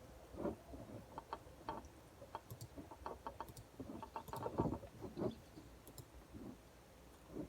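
Scattered, irregular clicks of a computer mouse and keyboard, faint, with a busier run of clicks about four to five seconds in.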